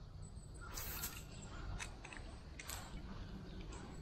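Faint handling noise from a fishing rod and spinning reel: a few scattered crunchy rustles and clicks, the strongest about a second in.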